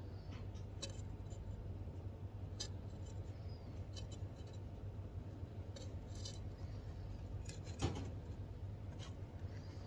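Fine steel tweezers clicking and tapping against a glass petri dish: a scattered run of small ticks, with one sharper click near the end. A steady low hum lies underneath.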